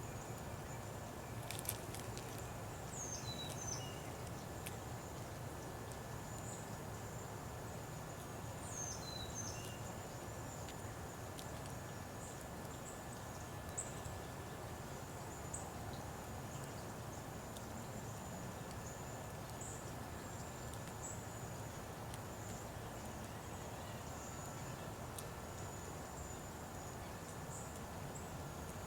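Birds chirping outdoors in a few short, falling calls, mostly in the first ten seconds, with a couple of sharp clicks about two seconds in. Underneath runs a steady low background rumble and a thin, high, continuous tone.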